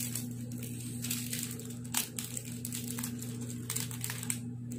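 Small chocolate wrapper crinkling in irregular bursts as it is peeled open by hand. A steady low hum runs underneath.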